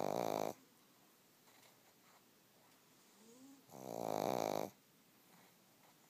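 Pug snoring in its sleep: two rattling snores, one ending about half a second in and a second, about a second long, starting near four seconds in.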